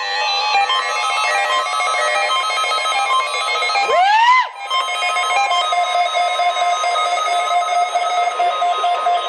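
Several NOAA weather radio receivers sounding their electronic alert tones at once for a required weekly test: overlapping steady and pulsing beeps at different pitches, with one short tone that sweeps up and back down about four seconds in.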